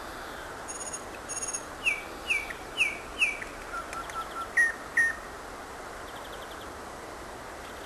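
Nightingale singing one phrase. It opens with quick clicks, then four strong falling notes, a few soft lower notes and two more falling notes, over a steady hiss. The song stops about five seconds in.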